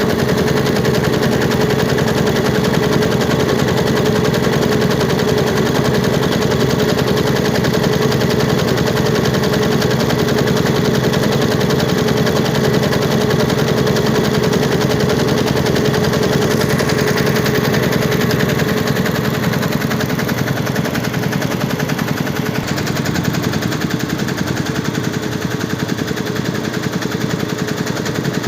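Computerized embroidery machine stitching: a rapid, steady chatter of needle strokes over a constant hum.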